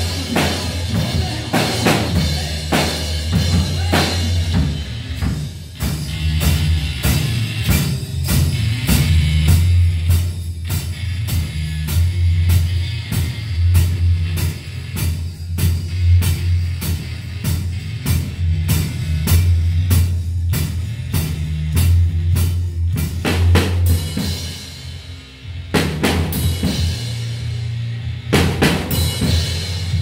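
A TAMA drum kit played to a rock song, with kick, snare and cymbals keeping a steady beat over a backing track's sustained low bass notes. It briefly drops quieter about 25 seconds in, then cymbal crashes come back.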